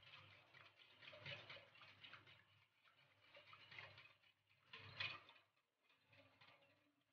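Faint, rapid, irregular clicking and scraping of a wire whisk against a glass mixing bowl, beating oil, yogurt and egg together.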